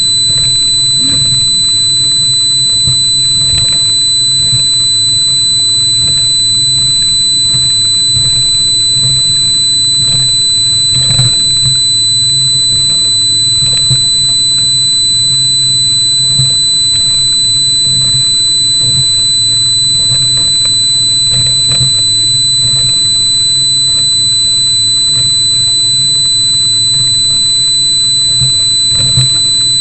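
Yamaha 300 four-stroke outboards running at speed, a steady low drone under the rush of wind and spray, with occasional thumps as the hull hits the chop.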